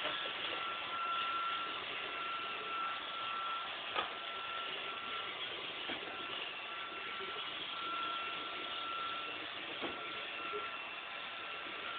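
Roomba robot vacuum running steadily, with a high whine that comes and goes and two sharp knocks, one about four seconds in and one about ten seconds in.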